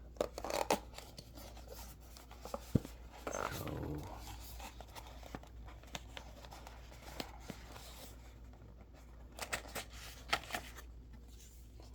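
Scattered light clicks and rustles of a small Victorinox Swiss Army keychain knife being handled, with one sharper click a little under three seconds in and a cluster of clicks near the end.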